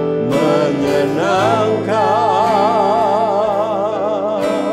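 Worship song: a man sings slowly with acoustic guitar, holding a long note with a wide vibrato from about halfway in.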